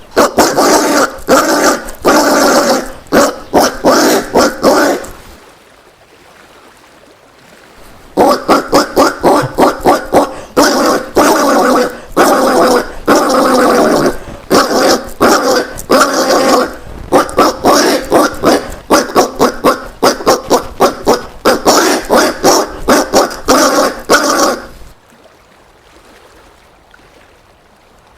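Collared peccary calling in quick runs of short, rough calls, several a second. A burst of about five seconds stops for a pause of about three seconds, then a long run of some sixteen seconds follows that breaks off about three seconds before the end.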